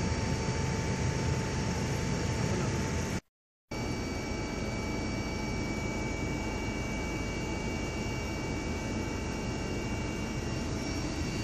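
Aircraft engine noise heard inside the cabin: a steady roar with a few steady high whining tones over it. The sound drops out for a moment a little over three seconds in.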